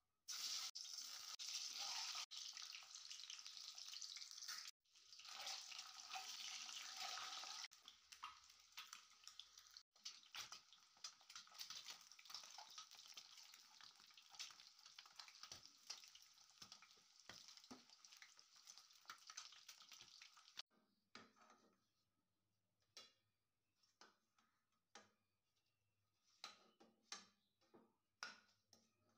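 Peeled boiled eggs dropped into hot oil in a kadai: a loud sizzle and spatter that eases off as they fry. After about twenty seconds the sizzle has mostly died away, leaving scattered taps and clinks of the steel spatula against the pan and plate.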